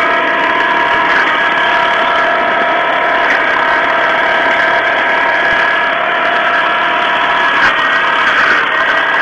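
SAME 360C tractor's diesel engine running steadily under load while driving a rear flail mower through tall grass, with a steady high whine over the engine.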